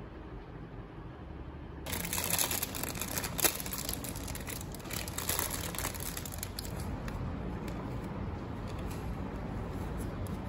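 Thin plastic bag crinkling and rustling loudly as a cake is pulled out of it, starting suddenly about two seconds in, after a low hum. It settles into fainter rustling of baking paper being peeled off the cake.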